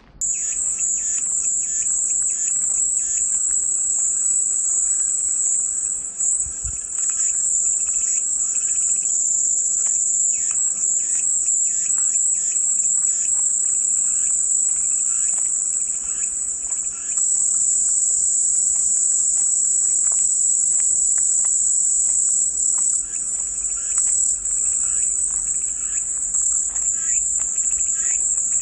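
Cicadas singing: one steady, loud, high-pitched chorus that holds without a break, with faint scattered ticks beneath it.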